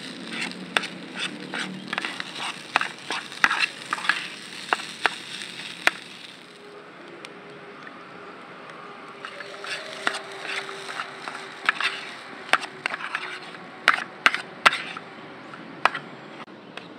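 Metal spatula scraping and clinking against a small camping pan as fried rice is stirred over a portable gas stove, with a light sizzle underneath. The scraping stops for a few seconds about six seconds in, then starts again in irregular strokes.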